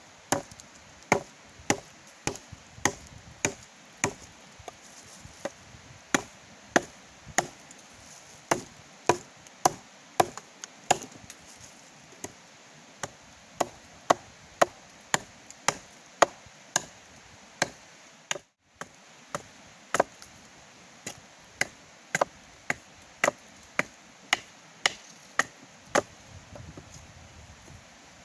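Wood being chopped by hand with a bladed tool: a steady run of sharp strikes, about two a second, with a momentary break about two-thirds of the way through.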